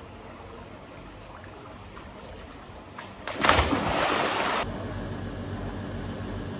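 A person jumps into a swimming pool about three seconds in, with a loud splash of water that lasts about a second and cuts off suddenly. Before it there is only a low, even poolside background. After it comes a steady low room hum.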